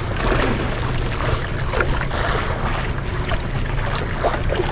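Fishing boat's engine running with a steady low hum, under wind rushing over the microphone.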